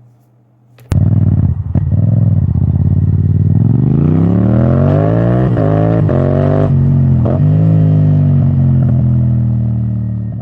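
An engine starts suddenly about a second in and revs, its pitch rising steadily over several seconds, then holds at a steady high rev and fades out at the end.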